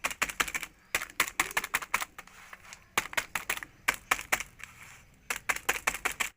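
Rapid sharp clicks in short runs of several a second, broken by brief pauses, in a rhythm like fast typing.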